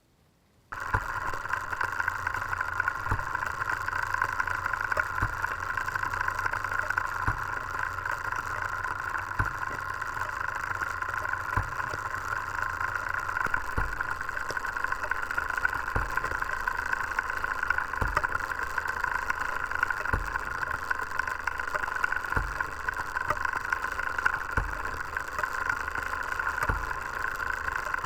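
A small clockwork mechanism running, picked up through a contact microphone attached to its frame. It starts a moment in and keeps up a steady mechanical whir, with a soft knock about every two seconds.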